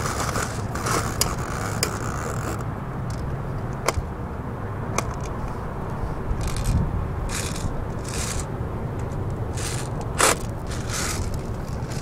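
Scattered clicks and several short scrapes of hands working a metal airsoft drum magazine while emptying the old BBs out, over a steady low background rumble.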